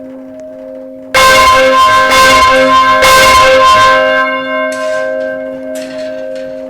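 Church bell ringing: a lingering hum, then three loud clapper strikes about a second apart that ring on and slowly fade. Several sharp knocks come near the end.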